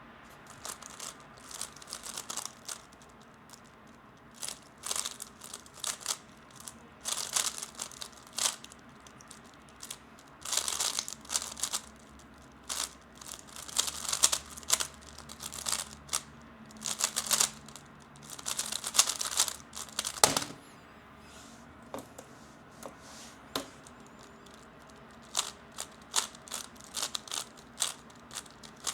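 A 3x3 Rubik's cube being turned fast: flurries of quick plastic clicking and rattling as the layers snap round, broken by short pauses. There is a single sharper knock about twenty seconds in.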